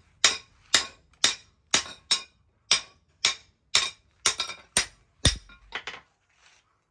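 Hand hammer striking a chisel held on a steel axe blank on an anvil: sharp, ringing metal-on-metal blows, about two a second, then a few lighter taps before the hammering stops near the end.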